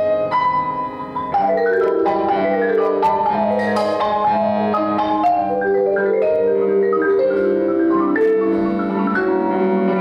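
Marimba played with four mallets, a quick run of ringing wooden-bar notes in a flowing melody. It gets louder about a second and a half in.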